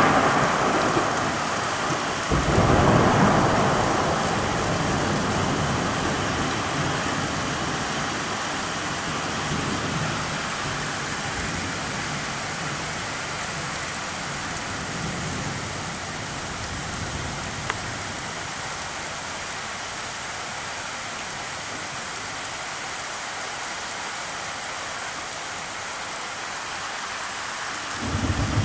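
Thunderstorm with heavy rain falling on a flooded street. A thunderclap about two seconds in rumbles and fades slowly over several seconds, leaving the steady hiss of the downpour, and thunder rumbles again near the end.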